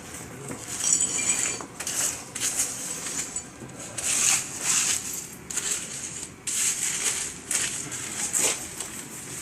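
Metal tool scraping and clinking against brick in irregular short strokes, gritty and high-pitched, as the masonry support is fitted under the upper courses of a brick pier.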